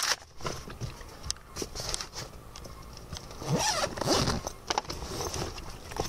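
Zipper of a fabric bag being pulled, along with the rustle and small knocks of the bag being handled. The loudest zipping comes a little past halfway.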